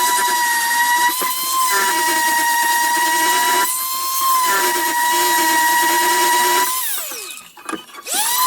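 Small electric hand planer's motor running at a steady high whine with no load, switched off about seven seconds in and winding down with falling pitch, then switched on again and spinning back up near the end.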